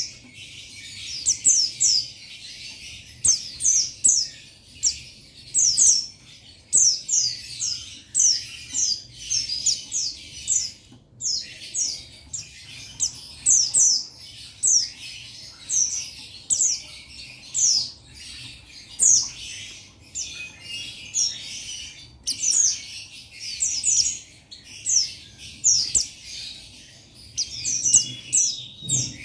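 Male buxtoni white-eye (pleci) calling a rival: a fast, continuous chatter of quick, high, downward-sweeping chirps, coming in bursts about once or twice a second.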